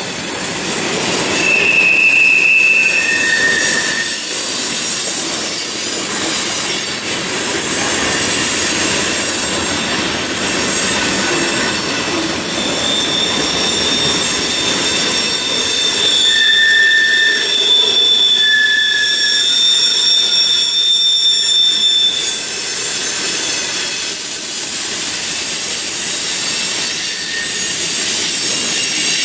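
Freight train of tank cars and boxcars rolling past: a steady rumble and clatter of steel wheels on the rails, with wheel squeal coming and going in several high tones, the longest held for about nine seconds around the middle.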